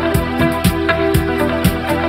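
Electronic music from a live DJ/band set: a steady beat about two a second under sustained tones.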